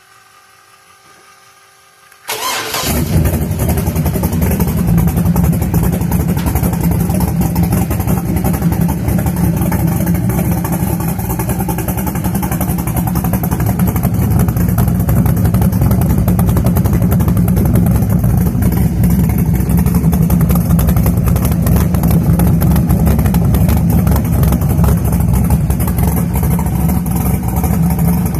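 357 cubic-inch small-block Chevy V8 on an engine stand, cranked by the starter for about two seconds, then catching about two seconds in and running steadily. Its exhaust goes through a pair of 3-inch Flowmaster Flow FX straight-through mufflers, much like glass packs.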